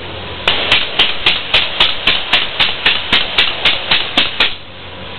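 A rapid, regular run of sharp knocks, about four a second for some four seconds, over a steady hiss and low hum.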